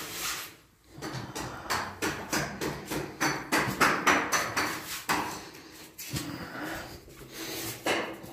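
Hand scraper working a plastered wall in quick, irregular strokes, several a second: metal blade scraping and knocking against old plaster.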